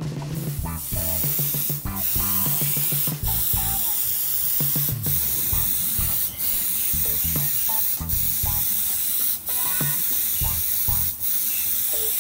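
Gravity-feed airbrush spraying paint in a steady hiss, starting just under a second in and dipping briefly several times.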